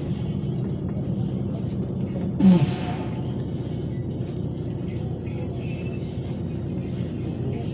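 MAZ 103 city bus's diesel engine running steadily, heard from inside the passenger cabin. About two and a half seconds in, a short loud hiss of released compressed air with a brief falling squeal.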